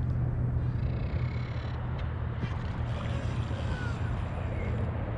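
Steady low rumble and hiss of wind and water around a fishing kayak on open water.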